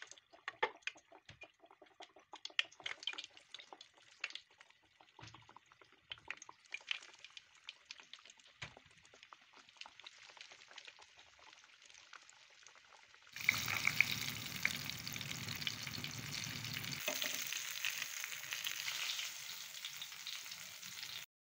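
Triangular dough pastries deep-frying in oil in a pot, the oil sizzling with fine crackles and pops. About thirteen seconds in, the sound cuts abruptly to a louder, denser steady hiss with a low rumble underneath.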